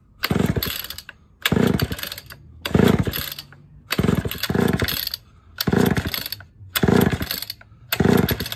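Homelite XL-12 chainsaw being pull-started over and over, about once a second: the recoil starter rope whirs out and the engine turns over, but it never catches. The cleaned carburetor diaphragm is not pumping fuel.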